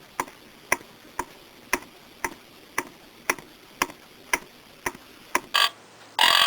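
Deer talking alarm clock ticking about twice a second. Near the end its alarm goes off with two loud recorded deer snorts.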